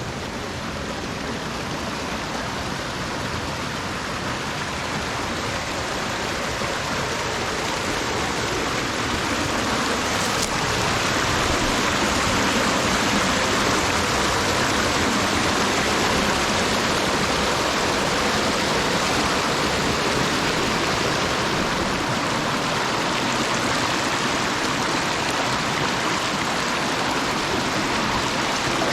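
Rushing creek water, a steady wash of noise that grows louder over the first dozen seconds and then holds steady.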